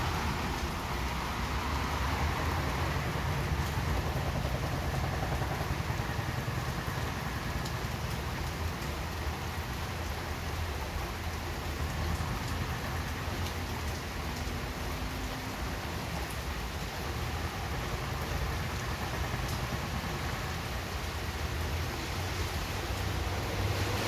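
Steady rain falling, an even hiss of drops with scattered small patters, over a constant low rumble.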